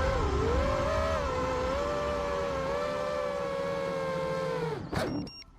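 FPV quadcopter's brushless motors whining at a steady, slightly wavering pitch, then spinning down near the end, followed by a sharp click.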